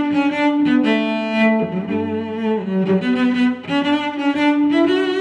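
Background music: a melody of long held notes that change pitch every second or so.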